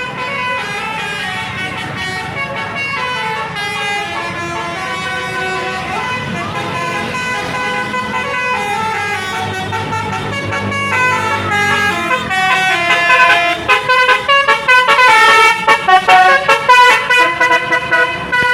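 Bus basuri 'telolet' horn, a multi-tone horn, playing a melody of stepped notes. About two-thirds of the way in it gets louder, with short, choppy notes in quick succession.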